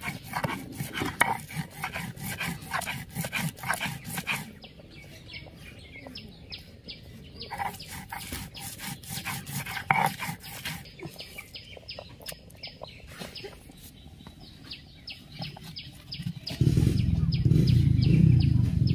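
Stone roller of a sil-batta grinding stone scraping and knocking over mustard flowers on the stone slab: a quick run of gritty strokes that grows sparser. Near the end a louder, steady low rumble takes over.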